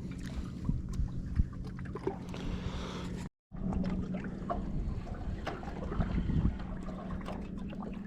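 Ambient noise aboard a small boat on open water: wind on the microphone, water against the hull, a steady low hum and scattered small knocks. The sound cuts out for a moment about three seconds in.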